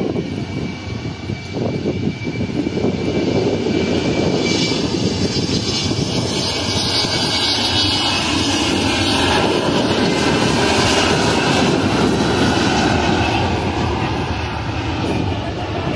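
Airplane engines as an aircraft passes close by. The rumble builds over the first few seconds with a rising hiss on top, is loudest about two-thirds of the way through, and then eases off.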